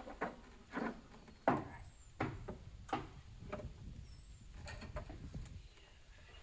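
A string of irregular knocks and clicks, about a dozen spread over several seconds, the loudest about one and a half seconds in.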